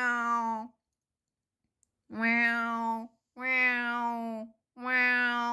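Long, drawn-out meows in the manner of a female cat in heat calling. Each lasts about a second at a steady pitch. One ends just after the start, then after a pause three more follow in a regular run.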